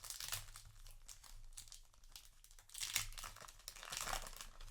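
Foil booster pack wrapper crinkling as it is handled and torn open, in crackly bursts near the start, at about three seconds and again at about four seconds.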